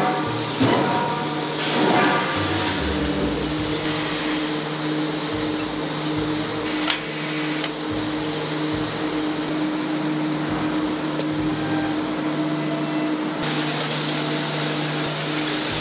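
Factory machinery running steadily with a constant electrical hum. There are a few metal clanks in the first couple of seconds and a single sharp knock about seven seconds in.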